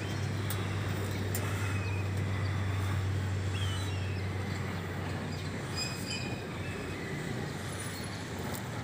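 Steady low mechanical hum and rumble that fades out about six seconds in, with a few faint high chirps.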